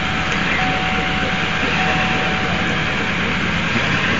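A vehicle driving over a rough dirt field, heard from inside the cab as a steady engine-and-driving noise, with a thin steady whine that breaks off a few times.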